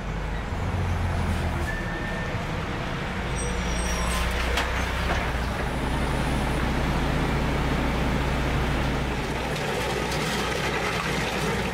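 Heavy utility truck's engine running steadily with a low hum, under a constant noisy hiss.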